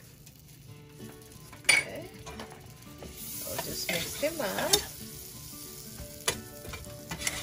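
Butter sizzling as it melts into browned flour in a hot pan while a wire whisk stirs it, the start of a roux. The whisk gives a few sharp clicks against the pan, and the hiss grows stronger about halfway through.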